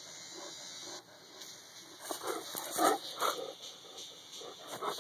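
Saint Bernard breathing and sniffing up close, with a run of short, loud breaths about two seconds in.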